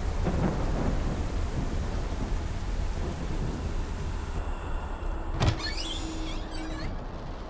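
Low rumble and hiss of a thunderstorm with rain. About five and a half seconds in there is a sharp click, then about a second of crackling, warbling high-pitched noise over a steady hum.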